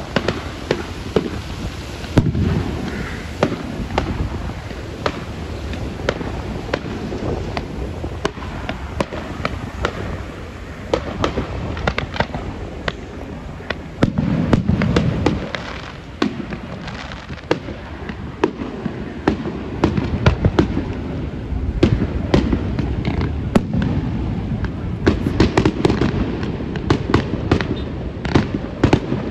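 Aerial firework shells bursting at a distance: repeated booms and crackling pops, with heavy booms about two seconds in and again around fourteen seconds. From about twenty seconds on comes a thicker run of rapid pops and bangs.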